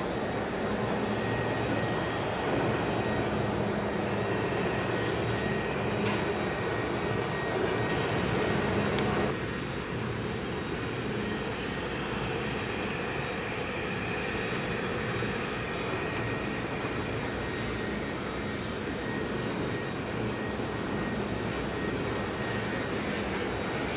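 Steady distant drone of a tugboat's diesel engines working under tow across the harbour, with a low hum running through it. The sound changes abruptly about nine seconds in.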